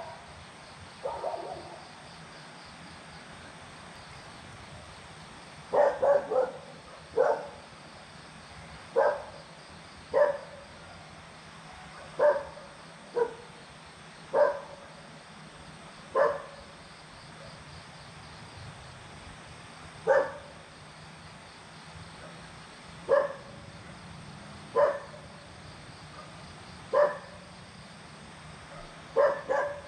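A dog barking in short single barks, sometimes two in quick succession, repeated every one to four seconds after a short lull near the start.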